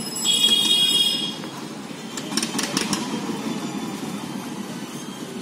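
Ferry boat's engine running steadily, with a brief high-pitched tone lasting about a second near the start.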